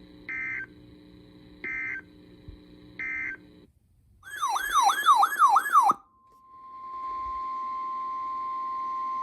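Emergency Alert System tones. First come three short bursts of SAME data tones, the end-of-message code, over a faint hum. Then there is a brief loud warbling, siren-like sweep. About six seconds in, the steady 1050 Hz weather radio alert tone fades in and holds.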